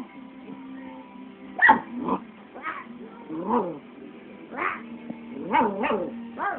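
Puppy making a run of short barking, yowling calls, about eight of them, each rising and falling in pitch, as it talks back during rough play.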